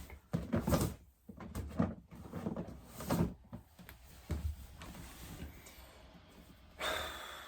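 Plastic fidget toys being handled and moved, with a string of light, irregular knocks and clatters, then a sliding scrape about seven seconds in.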